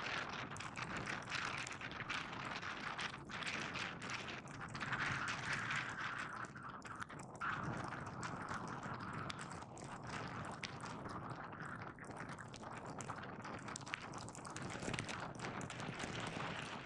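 Skis sliding down packed, groomed snow: a steady hiss broken by frequent short scrapes and clicks.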